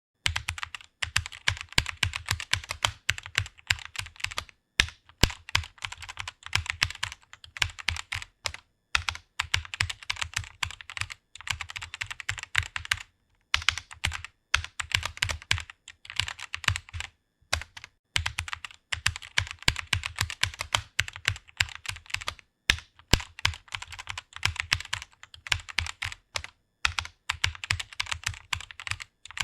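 Rapid typing on a computer keyboard: fast runs of key clicks in bursts of a second or two, broken by brief pauses, with an occasional louder single keystroke.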